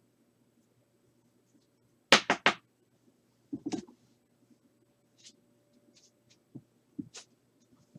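Trading cards and packs being handled on a table: three quick, sharp taps about two seconds in, a softer knock just after, then light ticks and rustles.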